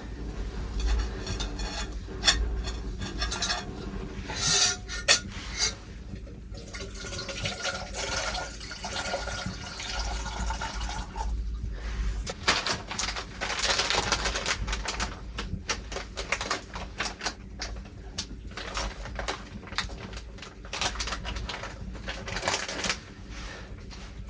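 Cooking pots and utensils clinking and knocking irregularly, with some handling of liquid, as a hot meal is prepared.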